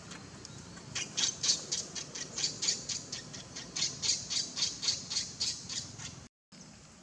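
Baby macaque squealing in distress: a fast run of short, high squeaks, about five a second, that cuts off abruptly near the end.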